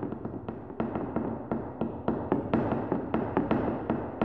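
Rapid, rhythmic percussive tapping, about four sharp strikes a second, over a low steady tone.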